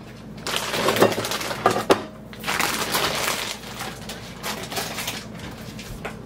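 Plastic bag of shredded cheese being handled, crinkling and crackling irregularly, with two sharper crackles about one and nearly two seconds in.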